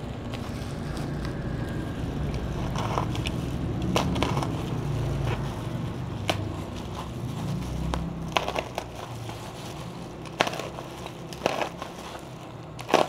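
Bubble wrap and a plastic mailer being handled and slit open with a snap-off utility knife: low rumbling handling noise for the first half, then scattered sharp crackles and snaps of plastic.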